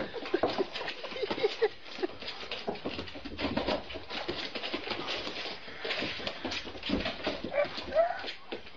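Dog whimpering in short, squeaky cries over many quick taps, with a louder rising squeal near the end.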